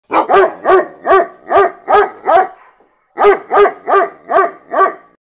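A dog barking in a fast, even series of about two to three barks a second, each bark rising and falling in pitch. After seven barks there is a short pause near the middle, then five more.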